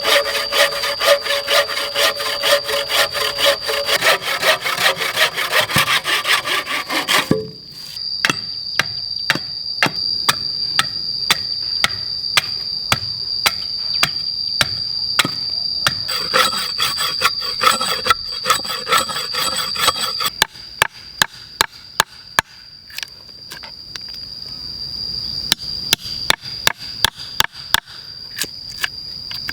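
Hand saw cutting wood in fast, even strokes for several seconds, then in slower strokes, followed in the last third by a series of separate sharp knocks on wood.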